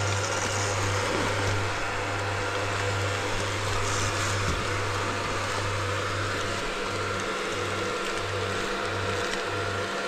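Dirt bike engine running at low speed, with a steady low drone under a broad wash of noise. In the last few seconds the drone pulses regularly, about twice a second.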